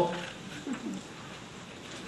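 A pause in speech: quiet room tone with one short, faint voice sound about half a second in.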